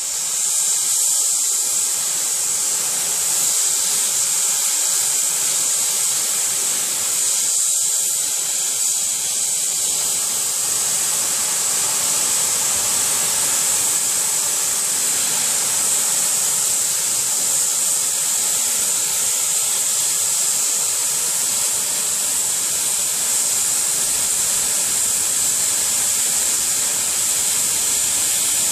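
Steam locomotive letting off steam: a loud, steady hiss that starts abruptly and runs on unbroken.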